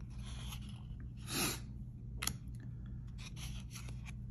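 2022 Topps Series 1 baseball cards sliding and rubbing against each other as they are flipped from the front to the back of a stack in the hands: several short papery swishes, with one sharp click a little after two seconds in.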